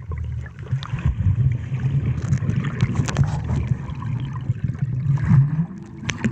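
Muffled underwater sound of swimming-pool water, heard through a submerged camera: a low churning rumble from swimmers moving through the water, with scattered small clicks.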